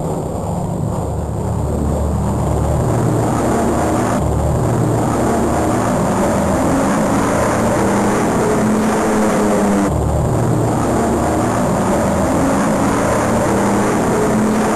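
Radial piston aircraft engines running, building up over the first two seconds, then holding a steady, loud drone.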